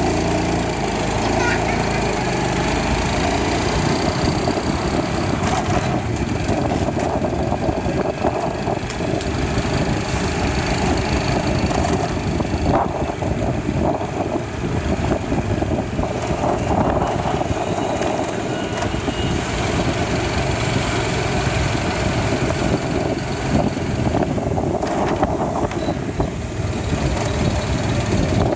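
A large engine running steadily, a constant rumbling noise without pauses.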